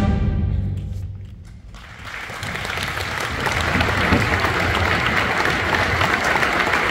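A school concert band's final chord cuts off and its low notes ring away in the gym's reverberation. About two seconds in, the audience starts applauding and keeps on steadily.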